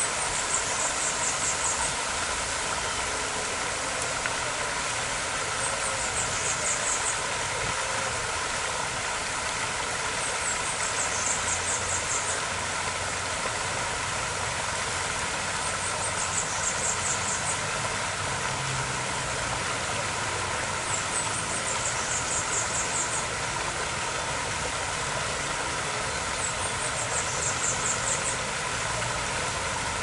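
Small waterfall pouring and splashing over rocks, a steady rush of water. A high, thin, rapid trill about a second long repeats six times, roughly every five seconds.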